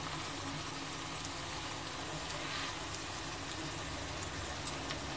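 Masala-coated raw banana slices shallow-frying in oil on a cast-iron dosa tawa: a steady sizzle, with a few small pops near the end.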